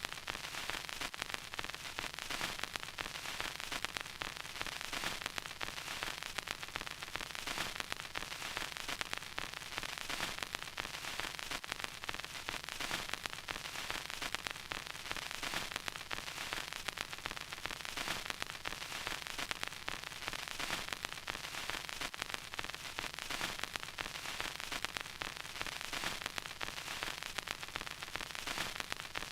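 Vinyl record crackle: a steady hiss thick with dense, irregular fine clicks and pops, with no music playing.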